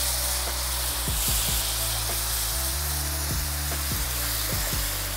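Chicken broth poured into a hot skillet of toasted rice, sizzling and hissing as it hits the pan. Background music with a bass line and a steady kick-drum beat plays under it.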